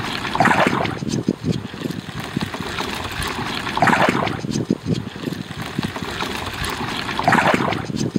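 Water splashing and sloshing around a small boat, in three surges about three and a half seconds apart, over a low, uneven rumble.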